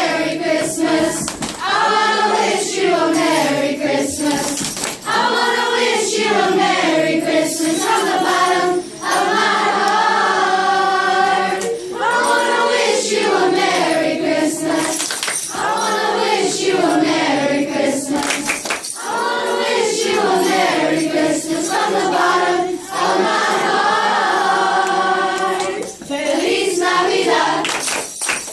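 A group of children singing a Christmas carol together, continuous phrases with short breaks between lines.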